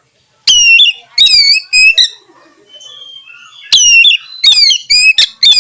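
Oriental magpie-robin (kacer) calling in loud, clipped notes, each a quick downward sweep. The notes come in two quick groups, about four in the first second and a half and about five more in the second half.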